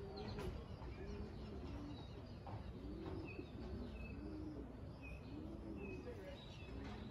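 Several pigeons cooing over one another, a steady run of low, arching coos, with a few faint high chirps from small birds.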